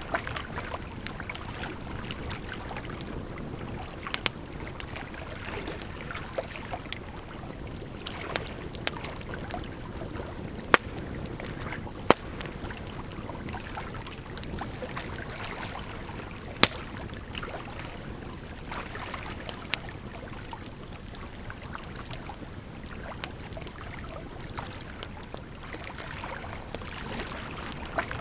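Wood fire crackling, with scattered sharp pops of burning firewood, a few much louder than the rest, over a steady rush of running water.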